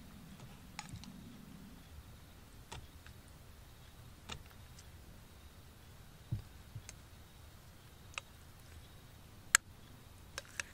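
Light clinks of a metal spork against a metal cup and an aluminium foil pan as hotpot is served out: about eight scattered clinks, the sharpest near the end, and a soft low thump about six seconds in.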